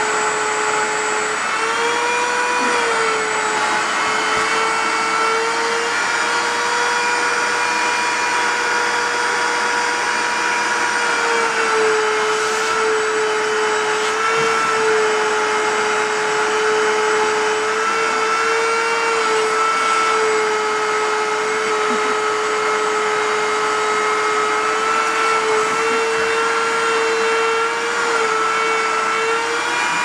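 Shop-vac running steadily: a continuous motor whine over rushing air, its pitch wavering slightly now and then.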